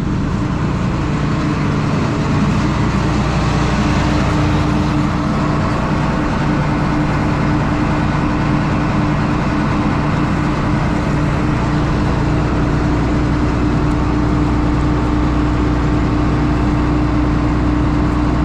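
Combine harvester running steadily, its engine and threshing machinery a continuous loud drone, with a steady hum that comes in about three seconds in.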